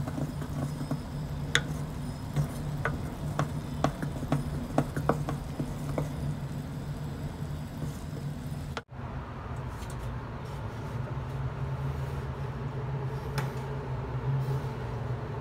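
Wooden spatula stirring a bubbling milk topping in an aluminium pot, knocking and scraping against the pot many times over a steady low hum. After a brief cut about nine seconds in, the hum goes on with only an occasional click.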